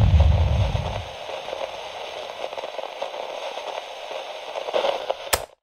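The low bass of music dies away in the first second, leaving a steady crackling, static-like noise that ends in a sharp click and cuts off abruptly.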